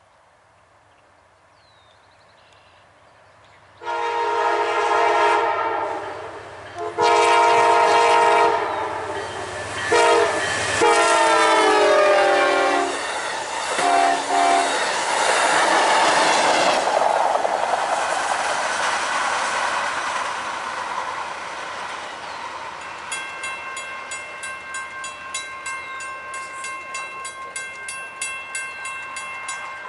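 Amtrak Downeaster passenger train approaching and blowing its horn for a grade crossing in the long, long, short, long pattern, the pitch dropping on the last blast as it passes, then a short extra toot. The cars then rush past, and a fast, even ringing comes in over the last several seconds.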